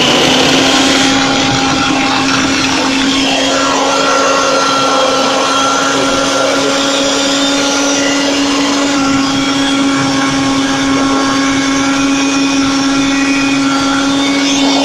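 Electric food processor running at full speed, its blades chopping celery, parsley and carrot into a paste. A loud, steady motor hum holds one pitch throughout, over the churning of the vegetables.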